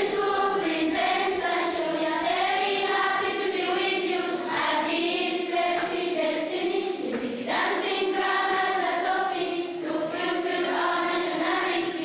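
A choir of children's voices singing together in long, held phrases, with no clear instrumental beat.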